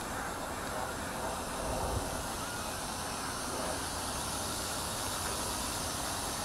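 A WLtoys V950 200-size RC helicopter hovering low before touchdown, its rotor blades and semi-brushless motor making a steady whirring hiss.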